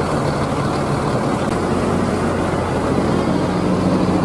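Diesel engine of a tour coach idling: a steady low engine hum with a haze of noise over it, growing a little fuller in the second half.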